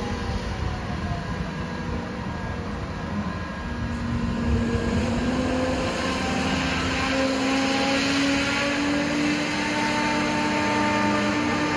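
Caterpillar MH3024 wheeled material handler's diesel engine and hydraulics running steadily as the upper structure slews round. About four seconds in, the engine note rises a little and grows louder.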